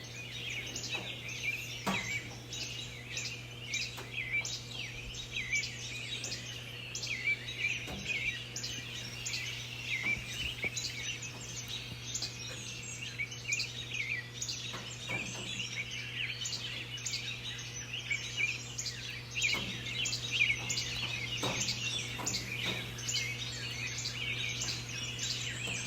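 Dawn chorus: many birds singing and chirping at once, dense overlapping calls throughout. A steady low hum runs underneath.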